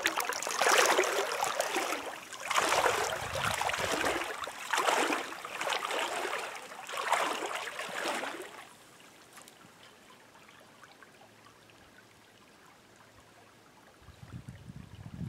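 Water splashing in about five uneven surges, which stop about eight seconds in. A low rumble comes in near the end.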